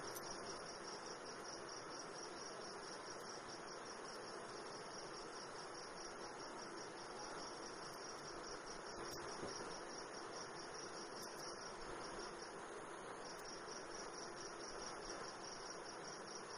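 Crickets chirping steadily in the background, a fast high pulsing over a faint hiss.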